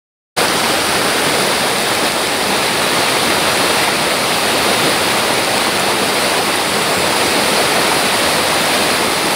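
Mountain stream pouring over small cascades and a waterfall among boulders: a steady rush of water that cuts in abruptly at the very start.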